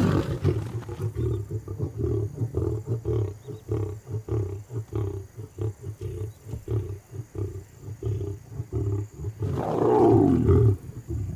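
African lion growling while guarding a kill: a long run of short, low growls, about three a second, then a louder, longer snarl about ten seconds in as a lioness comes close. It is a warning to the lionesses to keep off the food.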